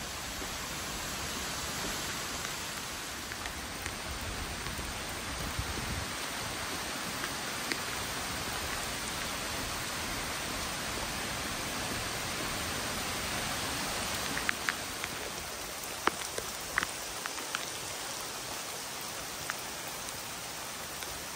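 Steady rain falling, an even hiss throughout, with a few sharp ticks in the last third.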